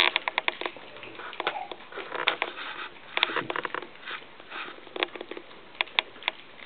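A litter of puppies eating from a shared metal feeding pan of mash: many quick, irregular lapping and smacking clicks, with sniffing, the loudest right at the start.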